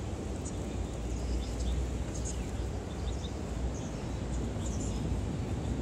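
Steady low rumble of outdoor city ambience, with a few faint high chirps scattered through it.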